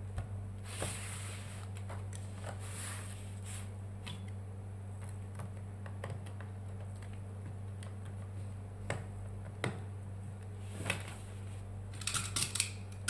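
Small scrapes and scattered clicks as a tablet's touchscreen glass is pried away from its frame with a thin tool, over a steady low electrical hum. Near the end comes a quick rattle of clicks as tools are handled on the workbench.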